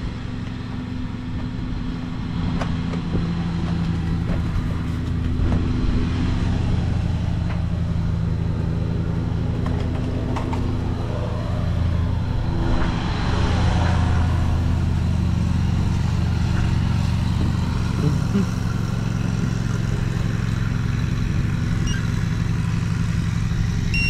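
Riding lawn mower's engine running steadily, with a louder swell of noise about halfway through.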